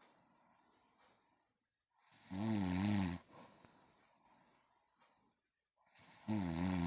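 Snoring in a steady rhythm: one full snore a little over two seconds in and the next one starting near the end, each a wavering pitched drone lasting about a second, with faint breathing between.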